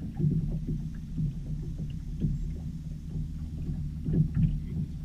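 Small fishing boat on the water: a steady low hum with frequent small, irregular knocks and water lapping against the hull.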